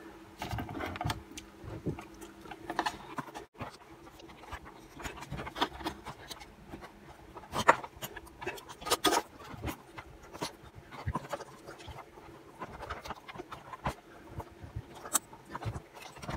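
Faint handling noises: small clicks, scrapes and rubbing as fingers work a tight rubber fuel line onto the carburettor's fuel nipple on a Stihl BG86 blower. The line has been trimmed and is a tight fit.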